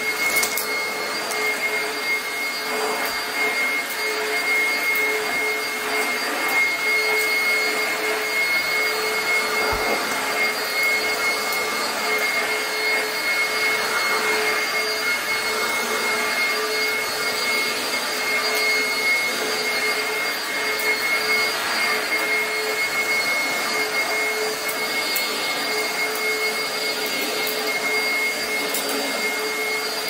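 Oreck XL upright vacuum cleaner running on carpet: a steady motor whine over a hiss of rushing air, swelling a little as the vacuum is pushed back and forth.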